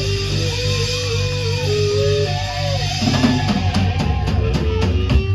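Live rock band playing: an electric guitar holds long, bending notes over the bass, then from about three seconds in the drums come in with a run of hits and cymbal crashes.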